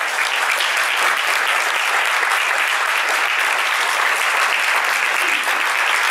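Audience applauding, a dense steady clapping from a room full of people.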